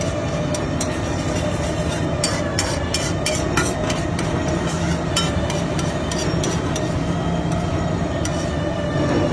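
Metal spatula clicking and scraping on a hot griddle as an egg gravy is cooked: irregular sharp clicks over a steady low rumble.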